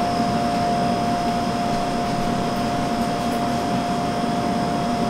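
Steady mechanical hum and hiss with a constant mid-pitched whine running through it, unchanging throughout.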